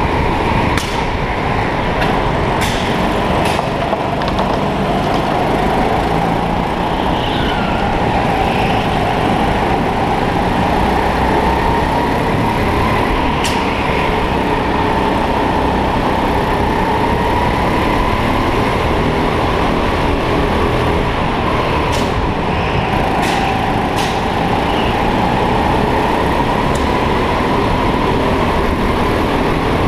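Indoor kart's motor running hard through a race lap heard from on board: a steady whine whose pitch rises and falls every few seconds as it accelerates and slows through the corners, over a heavy rumble. A few sharp knocks cut in now and then.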